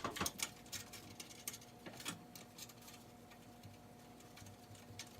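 Faint scattered clicks and light taps of the old garage door torsion-spring bearing plate being worked off its mount by hand, most of them in the first two seconds, over a faint steady hum.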